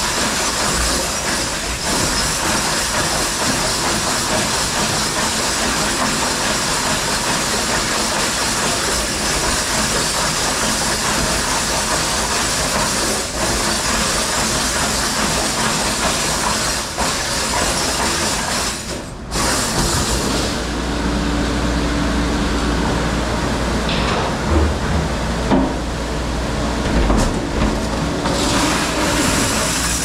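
Commercial dishwashing machine running with a steady loud rush and hiss of spraying water. A little after halfway the sound briefly drops and changes to a lower, steady machine hum with a few knocks and clatters.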